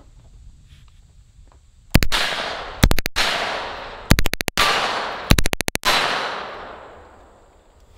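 H&K MP5 9mm submachine gun fired in full auto: four short bursts about a second apart, the first only a couple of rounds, each trailing off in a long echo. Firing stops after the fourth burst because the gun has jammed.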